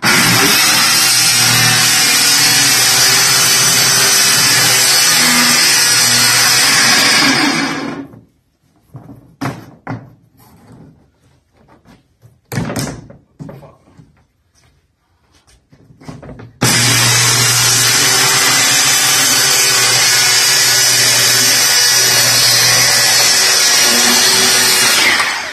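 Corded DeWalt circular saw ripping a sheet of thin luan plywood underlayment. It cuts steadily for about eight seconds, stops, and after a pause holding only a few scattered knocks and taps it cuts again for about nine more seconds, stopping just before the end.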